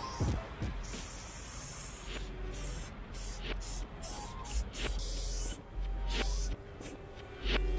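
Aerosol spray paint can hissing in a run of short bursts with brief pauses between them, then in a few longer strokes toward the end.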